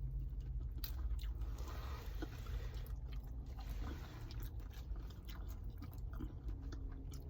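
A person chewing and biting into a mouthful of seafood boil close to the microphone, with small crunches and wet clicks, over a steady low hum.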